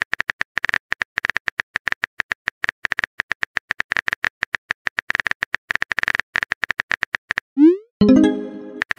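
Rapid synthetic keyboard-typing clicks from a texting-story app, about nine a second, as a message is typed out. Near the end a short rising whoosh marks the message being sent, followed by a brief chime-like tone.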